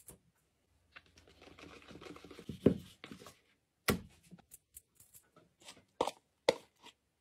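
Baking prep by hand: flour shaken through a mesh sieve and a wire whisk stirring thick cookie dough in a plastic bowl, a stretch of scraping and rustling in the first half, then several sharp knocks of the whisk and bowl.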